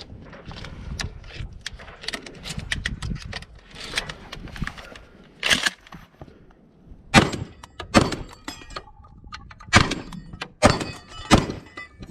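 Gear rattling and footsteps for the first few seconds, then about six loud, sharp gunshots spread over the second half. A brief metallic ring follows some of them, the sound of steel targets being hit.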